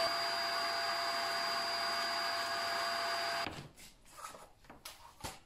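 Ash vacuum cleaner with a steel drum running steadily with a high whine, vacuuming a fireplace hearth, stopping abruptly about three and a half seconds in. Soft clicks and rustles follow.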